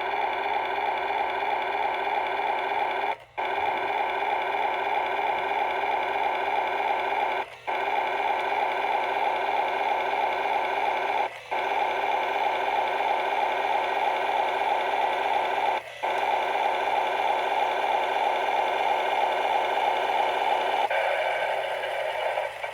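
Battery-powered Road Rippers Rumble Tractor toy playing its electronic engine-rumble sound through its small speaker, a steady rippling drone that loops with a short break about every four seconds and cuts off near the end.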